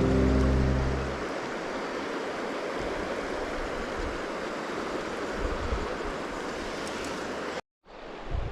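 Background music ends about a second in, leaving the steady rushing of a mountain river. Near the end the sound cuts out abruptly for a moment and comes back quieter.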